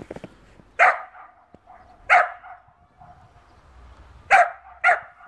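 German Shepherd puppy barking four times, the last two barks in quick succession.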